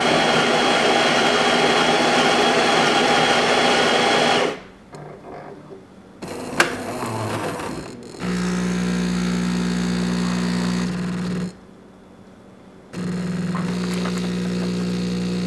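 Jura E8 super-automatic espresso machine making an extra-shot latte macchiato: its grinder runs loudly for about four seconds, then the brewing unit clicks and shifts, and the pump hums steadily as it brews espresso. The pump stops briefly and then starts again.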